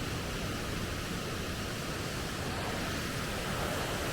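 Small mountain waterfall and its stream rushing: a steady, even rush of falling water.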